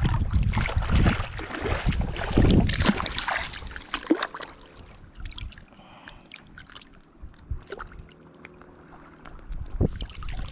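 Water splashing and sloshing, loud and irregular for the first few seconds, then dropping to faint trickling with small ticks, and rising again near the end.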